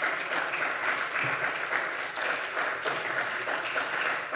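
Applause in a parliament chamber: many people clapping steadily.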